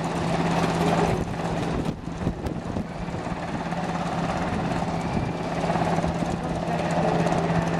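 Sikorsky S-92 search-and-rescue helicopter hovering, its rotors and turbine engines making a steady noise with a constant low hum.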